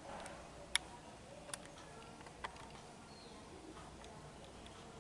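Three sharp, isolated clicks about a second apart over a faint steady hiss.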